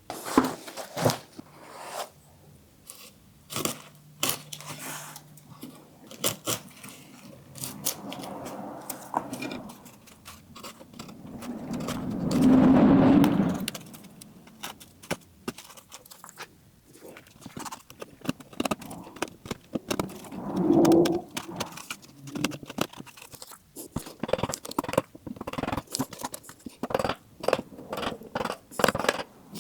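Wood chisel scraping and picking out rotten wood from a chair frame: a busy run of sharp clicks, taps and scrapes. Two louder, longer sounds come about twelve and twenty-one seconds in.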